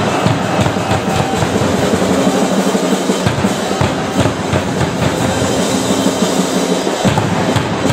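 School cheering band in the stands: drums beating steadily under brass and the voices of the cheering section.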